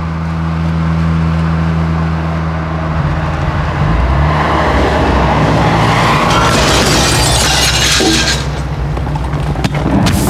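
A car driving fast, its engine note changing about three seconds in, then a rushing noise that builds to a peak and cuts off just after eight seconds in.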